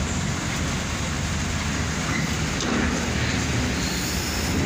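Mercedes-Benz coach's diesel engine running at low revs as the bus creeps past close by, a steady low rumble.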